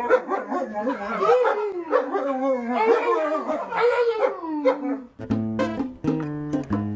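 Husky-type dog howling in long, wavering yowls, with a man's voice joining in. After about five seconds this gives way to plucked guitar music.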